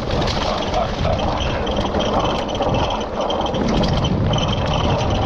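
Trek Stache hardtail mountain bike rattling and clattering at speed over rough ground, many rapid clicks over a low rumble of tyres and wind on the microphone. The rattling is the sign of a bike that no longer sounds as it used to after a hard day of mechanical trouble.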